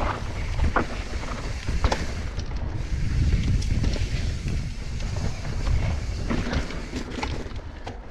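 Mountain bike riding down a dry dirt trail: steady wind rumble on the camera microphone and tyre noise on the dirt, with frequent short rattles and knocks from the bike over bumps.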